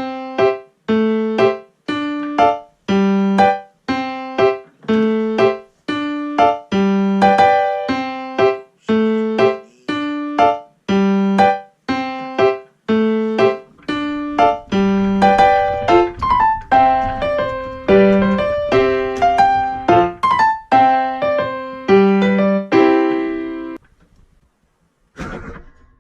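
Background music played on a piano or electric piano: a bouncy, evenly paced pattern of notes and chords about once a second. A low bass layer joins about halfway through, and the music stops shortly before the end.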